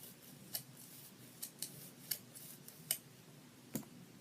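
Scissors snipping into a sand-filled stress ball to widen the cut, about six sharp snips at an uneven pace.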